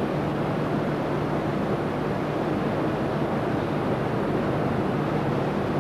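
Steady rushing noise with a constant low hum underneath, the background soundtrack of old, worn video footage.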